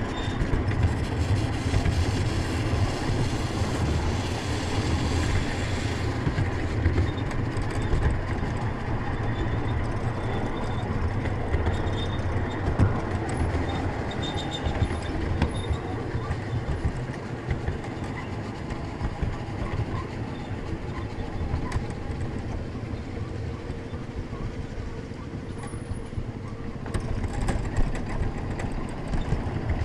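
Ride-on miniature railway train running along the track, heard from on board: a steady rumble of wheels on rails with scattered clicks. A higher hiss drops away about six seconds in.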